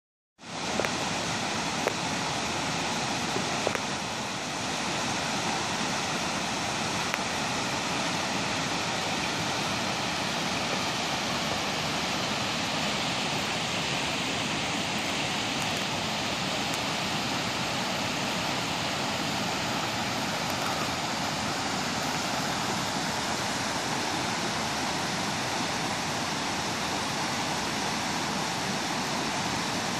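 Steady outdoor rushing noise with no change in level, with a few short clicks in the first few seconds.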